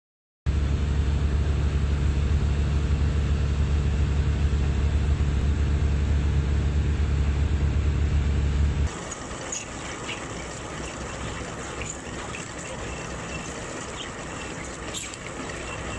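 Boat engine running steadily under the splash of water. About nine seconds in it cuts to a quieter hiss of water and wind with a few scattered clicks.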